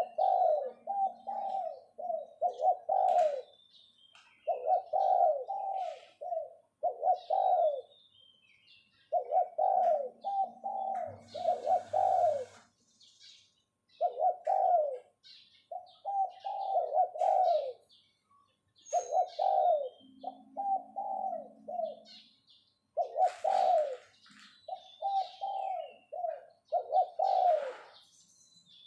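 Spotted dove decoy bird cooing its calling song over and over, each phrase a run of several rolling coos with short pauses between phrases. Faint chirps of small birds sound above it.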